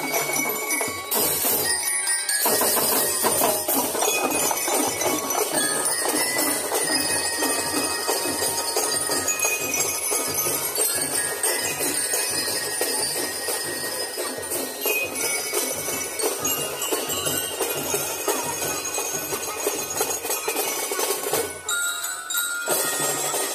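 Drum and lyre corps playing live: bell lyres ringing a melody over a steady beat of marching snare and tenor drums. The drums drop out briefly about two seconds in and again near the end.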